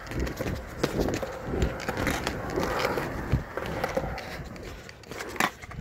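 Skateboard rolling on concrete, its wheels rumbling, with irregular knocks and clacks from the board.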